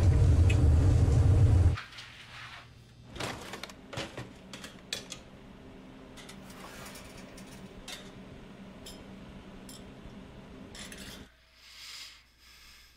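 A loud low rumble that cuts off suddenly about two seconds in, then scattered light clinks and knocks of small hard objects being handled over a faint steady hum.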